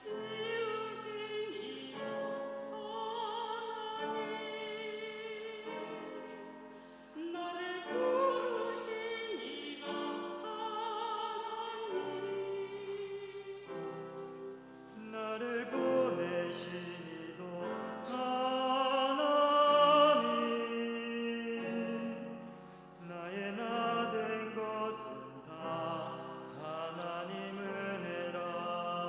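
Sacred song sung in a classical style with vibrato over accompaniment, in several phrases.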